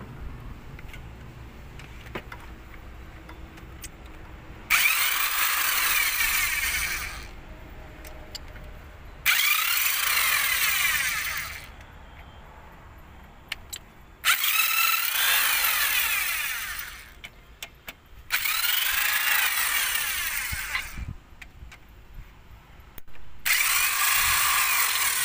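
A power tool runs in five separate bursts of about two seconds each. Each burst starts abruptly with a whirring, sweeping pitch and winds down at its end. It is at work on the cylinder head as the head is being taken off.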